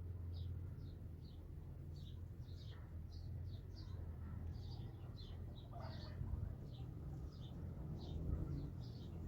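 A small bird chirping repeatedly, with short, high, falling chirps about twice a second, over a steady low rumble.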